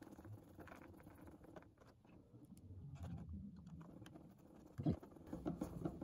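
A small screwdriver driving a screw into a plastic cassette-player case: faint scratchy clicks and ticks, with one sharper knock about five seconds in.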